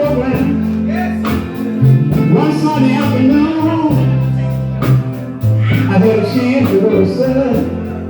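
Live gospel band playing: held bass notes and a steady drum beat under guitar, with a voice singing over the music.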